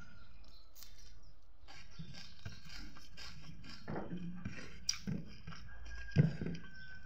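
Close-up eating sounds: chewing and mouth smacks while fingers mix and scoop rice on a ceramic plate, with scattered small clicks. A short thump about six seconds in is the loudest sound.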